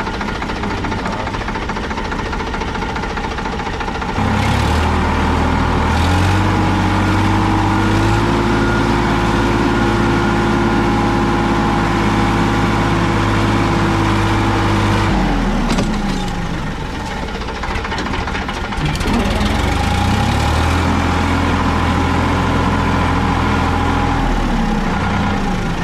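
Tractor diesel engine running under way. About four seconds in it revs up and holds at a higher speed, eases off around sixteen seconds, then revs up again and eases off just before the end.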